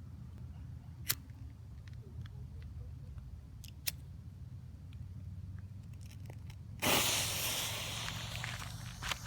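World Class Fireworks 'Executioner' firework going off: a sudden loud hiss about seven seconds in that fades over a couple of seconds, followed by a few sharp pops near the end. Before it there is only a faint low rumble and two isolated clicks.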